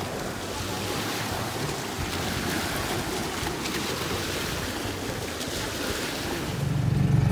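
Wind buffeting the microphone over small waves washing onto a pebbly lakeshore. Near the end a louder, steady low hum comes in.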